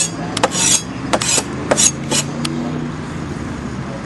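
Knife clicking and scraping on a cutting board as pineapple is cut into small pieces: about half a dozen sharp clicks in the first two and a half seconds, some with short scrapes. A steady low hum runs underneath.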